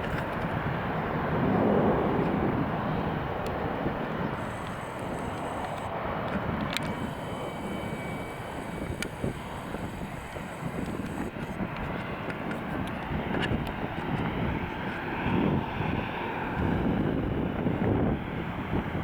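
Jet airliner engine noise, a steady rumble that swells and eases as the plane moves along the runway.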